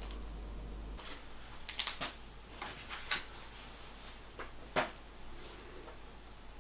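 A few soft, scattered clicks and knocks of small handling movements, about five, with the strongest near the five-second mark, over a faint steady low room hum.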